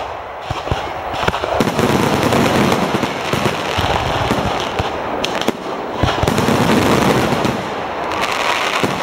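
A firework finale of about 200 mortars fired in quick succession: a continuous barrage of launch thumps and shell bursts overlapping with crackle.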